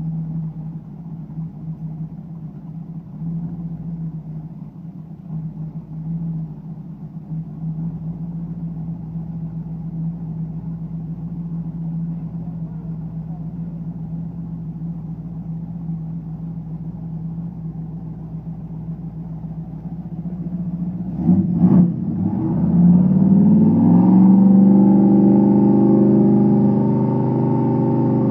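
Chevrolet 350 small-block V8 idling steadily. About three-quarters of the way in, it revs up and holds at a higher, steady speed, louder than the idle.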